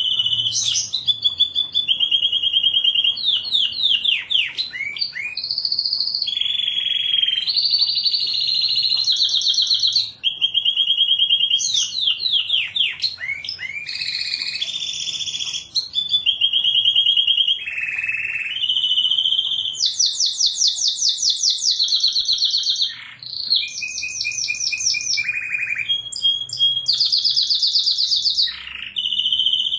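Domestic canary singing without a break: rapid trills and rolls of repeated notes, each run lasting a second or two before the bird switches to another at a different pitch, with quick sweeping notes in between.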